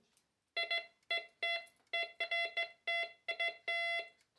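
MD4030 metal detector beeping over a piece of costume jewellery: a choppy, broken-up tone of short beeps, about two to three a second, starting about half a second in. This broken tone is the detector's signal for junk metal, as opposed to the clean steady tone it gives for coins and silver.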